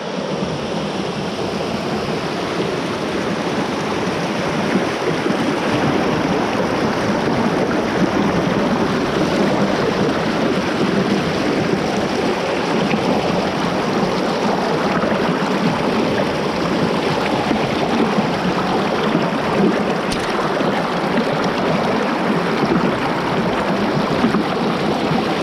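Creek water rushing and splashing over rock ledges in a shallow cascade, heard close up as a steady, loud rush.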